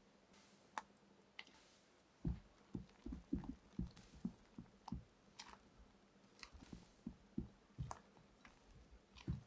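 Silicone spatula folding and scraping a thick cream in a glass mixing bowl: a string of soft, irregular thumps and squelches, with a few light clicks of the spatula against the glass.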